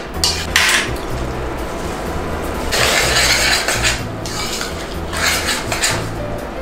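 Metal spoon stirring and scraping a thick vegetable stew of ratatouille against the sides of a stainless steel pot, in three scraping bursts.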